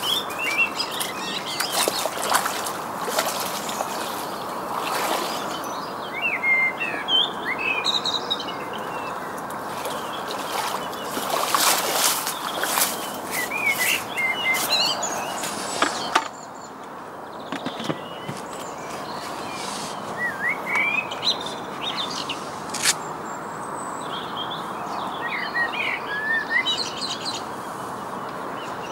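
Small birds singing in the reeds, a string of short chirping and warbling phrases repeated again and again over a steady background hiss. In the first half there is a run of sharp clicks and knocks, and about 16 s in the background hiss drops suddenly.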